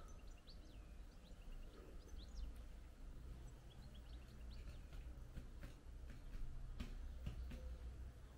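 Small birds chirping faintly in short, high, scattered notes over a steady low rumble, with a few soft knocks in the second half.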